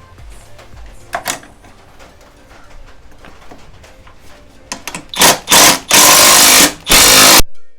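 Power drill starting in a few short bursts, then running steadily for about two seconds before stopping suddenly. Faint clicks and knocks come before it.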